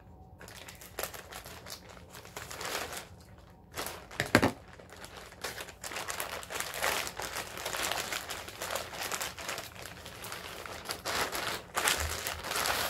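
Plastic poly mailer bag crinkling and rustling as it is cut open and its contents are pulled out, with one short, sharp, loud crinkle about four seconds in.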